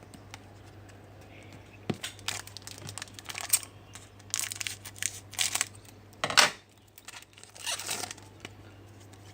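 Foil trading-card pack wrapper being torn and crinkled, in irregular rasps that begin about two seconds in, the loudest a little past the middle.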